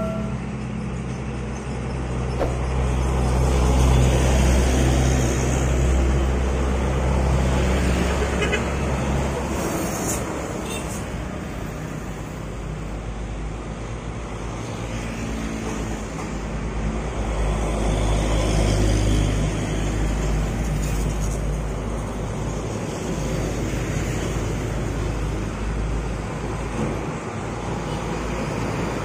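Road traffic going by: motorcycles and trucks passing, with the low running of heavy truck engines.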